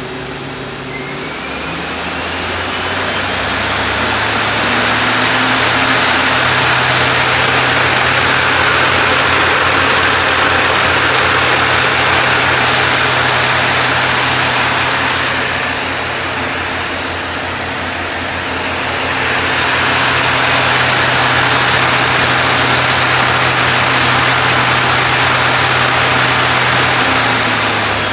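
Okuma Crown 769S CNC lathe spindle spinning its 15-inch hydraulic chuck. It spins up with a rising whine, then runs at speed with a loud rushing whir over a low hum. The level dips briefly midway and comes back up, and the whine begins to fall as it slows at the very end.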